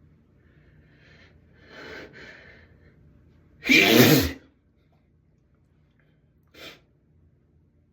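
A person sneezing once, loudly, after a couple of gasping in-breaths, one sneeze in a fit of repeated sneezing brought on by a tickle in the nose.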